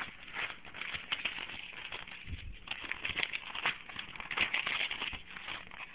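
Sheets of paper crinkling and tearing as a pug puppy chews and tugs at them: a dense, continuous run of rustles and crackles.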